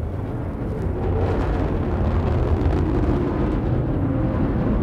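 The steady low rumble of the New Shepard rocket's BE-3 liquid-hydrogen and liquid-oxygen engine burning during ascent, a little louder from about a second in.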